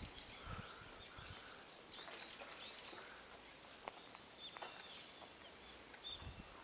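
Faint outdoor ambience with small birds chirping now and then, including a short run of high calls around the middle, and a few soft low thumps.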